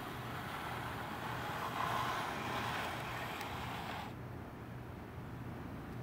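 A rushing, wind-like noise that swells and then cuts off suddenly about four seconds in, over a faint steady low hum.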